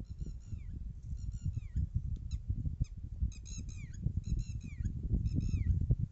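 Bird calls: short, high, down-slurred notes repeated in quick clusters of three or four, over a low rumble of wind on the microphone.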